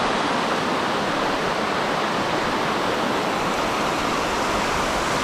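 Rushing river water, a loud, steady rush.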